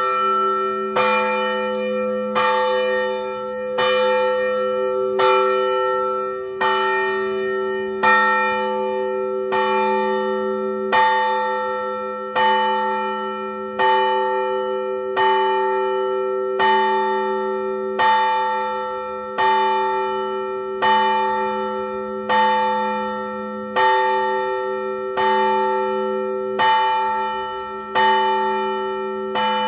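Orthodox church bells ringing to call worshippers to a service. Bells are struck in an even rhythm about once every second and a half, each stroke ringing out and fading, over a low bell tone that hums on underneath.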